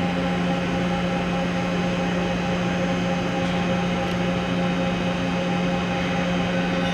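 Toshiba CNC horizontal boring mill running under power: a steady machine hum with a strong low tone and a few fainter higher tones.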